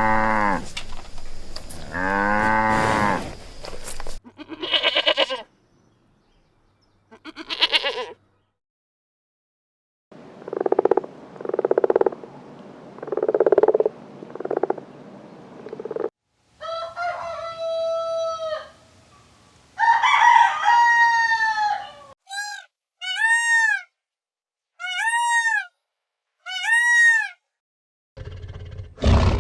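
A run of separate farm-animal calls with short silent gaps between them: long low moo-like calls at the start, then higher calls, including rooster-type crowing and, near the end, five short arched calls in a row.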